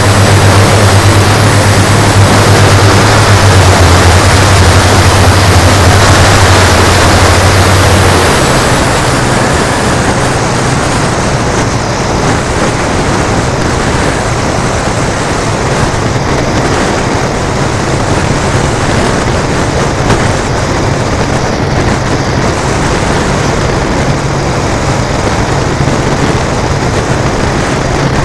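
Engines of a radio-controlled B-17G scale model running in flight, a steady propeller drone. It is loudest for the first eight seconds or so, then drops to a lower, steady level.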